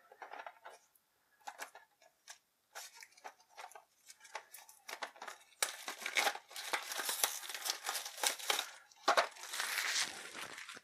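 Plastic shrink-wrap on a small cardboard game box being slit with a hobby knife and peeled off: scattered small crackles at first, then two stretches of dense crinkling in the second half.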